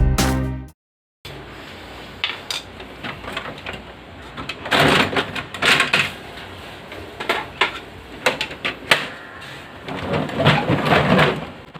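Background music fades out within the first second. Then come irregular plastic clicks, knocks and scraping as the covers and parts of a Brother DCP-L2540DW laser printer are handled and taken apart, loudest in two bursts around five and ten seconds in.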